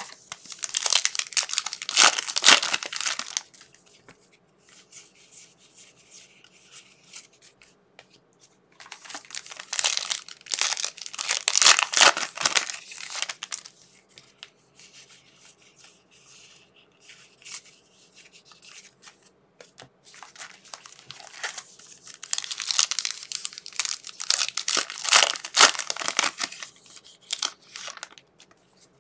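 Trading card pack wrappers being torn open and crinkled, in three spells of a few seconds each with quieter rustling between.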